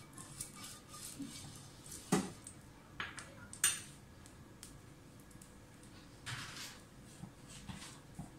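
Kitchen utensils handled on a non-stick tawa being greased with oil: faint brushing, then a few sharp knocks and clinks, the loudest about three and a half seconds in, and a short rustling rush a little after six seconds.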